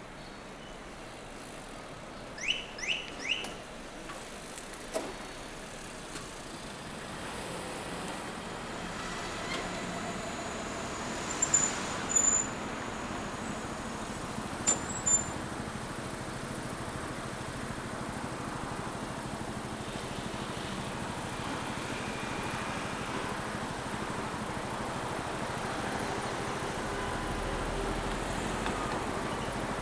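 Street traffic and road noise heard from a moving bicycle, slowly growing louder, with three quick rising chirps about two and a half seconds in and a few sharp clicks near the middle.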